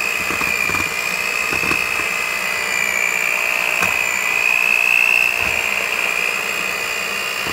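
Betty Crocker electric hand mixer running steadily, its beaters shredding cooked chicken breast in a bowl. It makes a steady high whine that wavers slightly in pitch.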